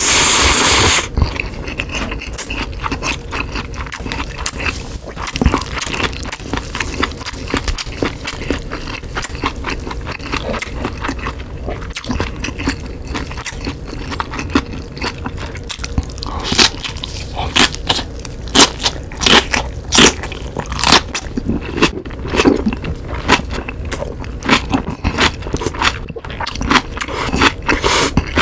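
Close-miked eating sounds: a loud slurp of ramen noodles in the first second, then steady wet chewing with many small crackles. In the second half, crunchy bites and chewing of napa cabbage kimchi come thicker and louder.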